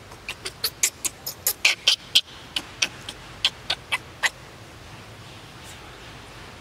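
Young macaque giving a quick series of about eighteen short, high squeaks, irregularly spaced, which stop about four seconds in.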